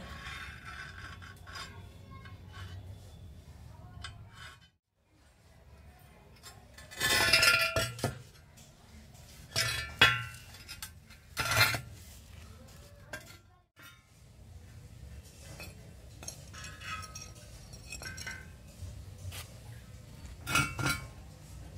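Steel tube pieces clinking and knocking together as they are handled and positioned, with a few sharp clinks scattered through and a longer, noisier burst about seven seconds in.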